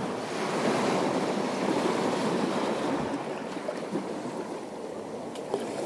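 Sea waves washing steadily on the shore, with a few faint clicks near the end.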